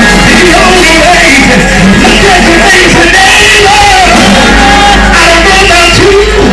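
Loud music with a singing voice over it.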